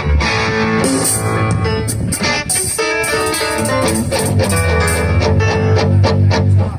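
Live rock band playing through the stage sound system during a soundcheck, with electric guitar to the fore over a strong low bass line.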